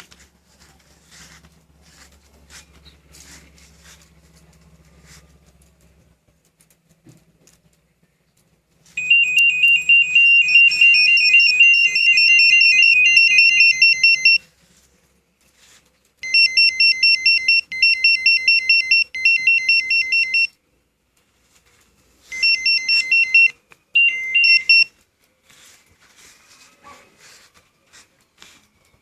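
Winfar two-way motorcycle alarm sounding in rapid electronic beeps, in three bursts: about five seconds, then four, then a shorter broken one.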